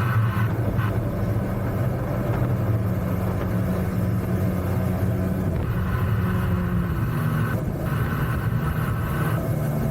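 Mini jet boat's engine running steadily under way, a continuous low drone with small shifts in pitch.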